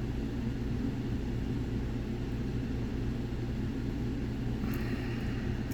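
Steady low mechanical hum and rumble, even throughout, with a brief faint hiss and a couple of light clicks near the end.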